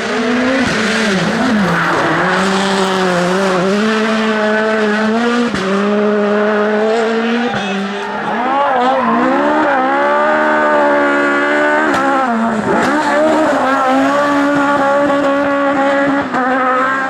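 Rally car engine running hard at high revs, its pitch holding, dipping and climbing again several times, with short breaks in the note about five and a half, seven and a half and twelve seconds in.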